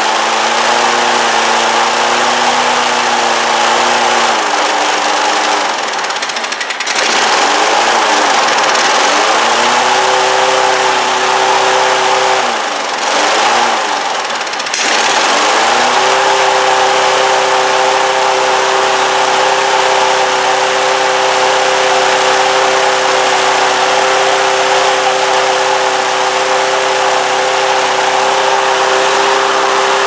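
Toro Recycler 22-inch mower's small single-cylinder four-stroke engine running. Its speed hunts up and down several times in the first half, then settles at a steady high speed. It is running pretty high, the sign of a twisted, misrouted governor spring.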